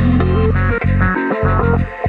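Background music: plucked guitar notes over a steady, repeating bass line.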